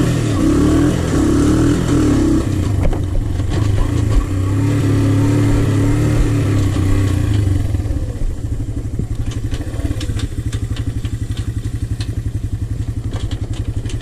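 Honda TRX125 quad's single-cylinder four-stroke engine running under throttle as it pulls away and changes up through the gears. It eases off about eight seconds in, with scattered light clicks and rattles after that.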